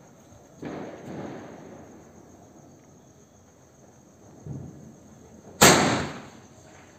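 Standard Fireworks 'Pandav' silver sky shot launching: a sudden loud blast about five and a half seconds in that fades over about a second, after softer thuds under a second in and about four and a half seconds in.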